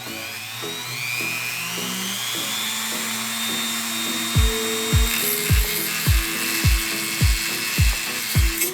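Mini rotary tool spinning up with a rising whine, then running steadily with a high rasping buzz as it cuts into brass. Background music with a thumping beat about twice a second comes in about halfway through.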